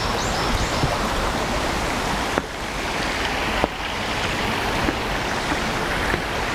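Steady rush of a shallow ravine stream running over rocks, with two sharp knocks a little over a second apart near the middle.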